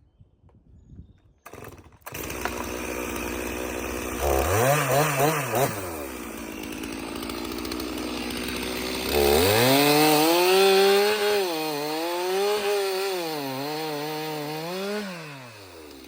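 Two-stroke chainsaw coming in about two seconds in at idle and revving up briefly. It is then held at high revs for about six seconds, its pitch dipping and rising as it cuts through wood, before dropping back to idle near the end.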